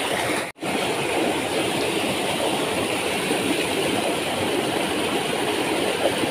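Small mountain stream rushing over rocks in a little cascade: a steady, loud rush of water that drops out for an instant about half a second in.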